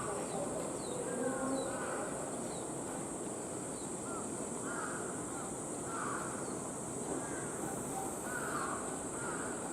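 A steady, high-pitched summer cicada chorus, with crows cawing repeatedly and faint bird chirps over it.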